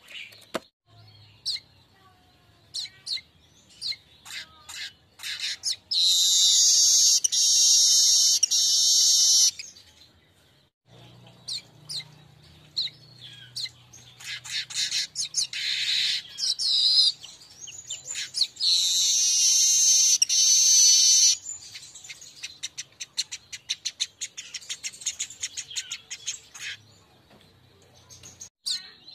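Weaver (manyar) song: many short high chirps and ticks, with two long, loud, high trills of about three seconds each, one about six seconds in and another about nineteen seconds in.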